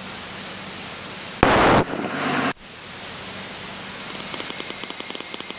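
Aircraft radio and intercom static hissing steadily in the headset between transmissions. A brief louder burst of static comes about a second and a half in, and faint rapid ticking joins in near the end.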